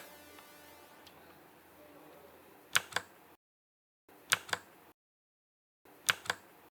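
Keys on a Zebronics Zeb-NIRO Plus keyboard pressed three times, each press a quick double click, switching the RGB lighting modes.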